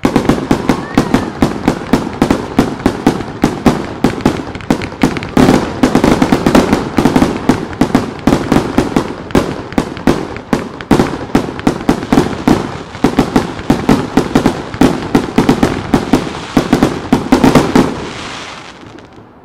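Fireworks starmine: a rapid barrage of aerial shell bursts, several bangs a second overlapping with their echoes, stopping about eighteen seconds in and fading away.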